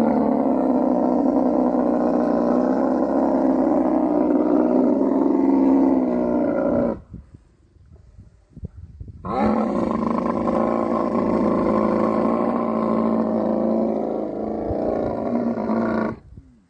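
Rutting male dromedary camel calling: two long, loud calls of about seven seconds each, the second beginning about two seconds after the first ends.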